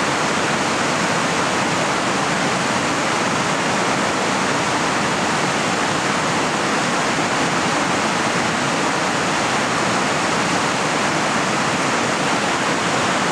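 A river's rushing water, a steady, even roar with no breaks.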